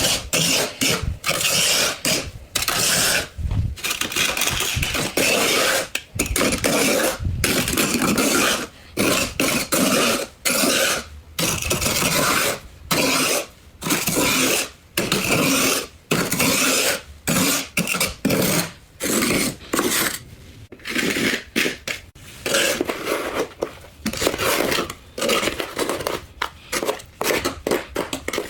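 Frost being scraped off in repeated strokes, about one a second, each a rasping scrape; the strokes get shorter and quicker near the end.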